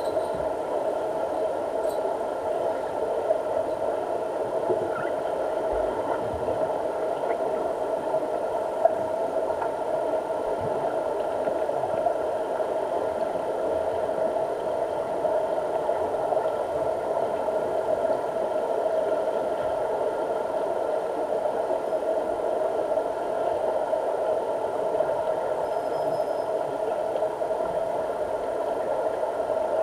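Steady underwater drone of a deep diving pool, heard with the microphone submerged: an even, unbroken hum with a few faint constant tones above it.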